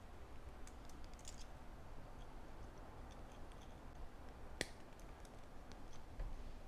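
Faint scattered clicks and ticks of thin 24-gauge craft wire strands and flat nose pliers being handled while the wire is twisted, with one sharper click about four and a half seconds in.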